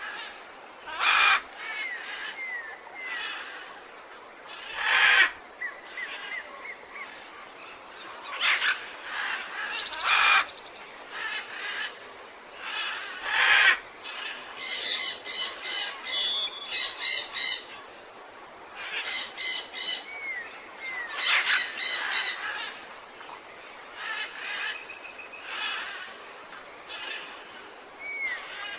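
Tropical forest birds calling over a steady background. Loud, harsh squawks come every few seconds, with two runs of rapid repeated notes in the middle and a few short whistled glides.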